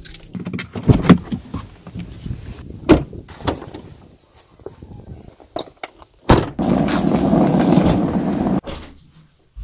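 A car's boot being opened by hand: a series of clunks and clicks, a sharper knock about six seconds in, then about two seconds of steady rushing noise that stops abruptly.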